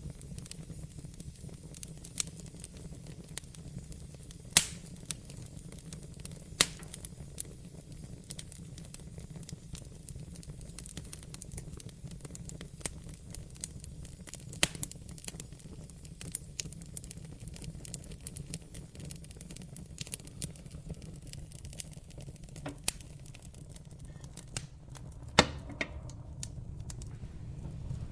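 Wood fire burning in a fireplace: a steady low rumble of flames with irregular crackles and a few sharper pops, the loudest about four and a half seconds in, six and a half seconds in, and near the end.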